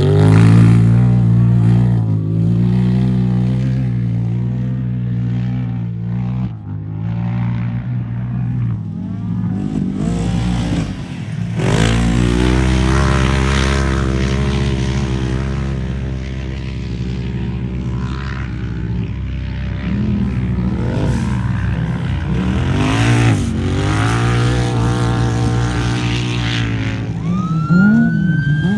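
Off-road race vehicle engines running and revving, pitch climbing and dropping several times, louder around the middle and again later. A rising whine comes in near the end.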